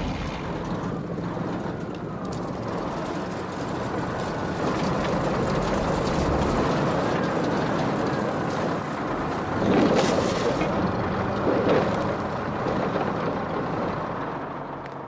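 Heavy machine engine rumbling steadily in a film soundtrack, with two louder bursts about two-thirds of the way through.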